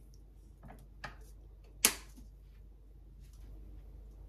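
A few light clicks and knocks of kitchen utensils and seasoning containers handled over a small frying pan; the sharpest and loudest comes a little under two seconds in. A low steady hum lies underneath.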